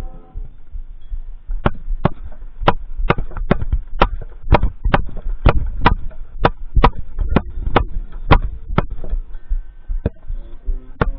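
Drumsticks tapping out a steady time-keeping pulse on the marching tenor drums, about two and a half sharp clicks a second for some seven seconds, starting a little over a second after the band's music stops, with two more taps near the end, over a low rumble.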